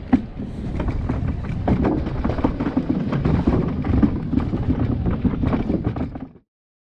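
Footsteps and rattling fishing gear on wooden jetty boards, irregular knocks over wind buffeting the microphone. It cuts off abruptly about six seconds in.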